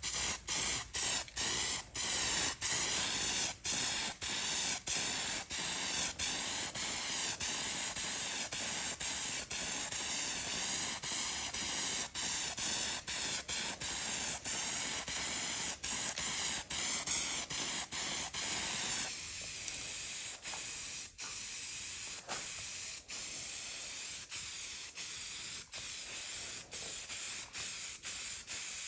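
Aerosol cans of automotive primer spraying: a steady hiss broken by brief gaps about twice a second as the nozzle is pressed and released in short passes. About two-thirds of the way through, the hiss turns softer and duller.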